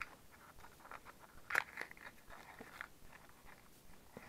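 Faint rustling and light clicks of a small cardboard candy box and its paper wrapper being handled and opened by hand, with one sharper crinkle about a second and a half in.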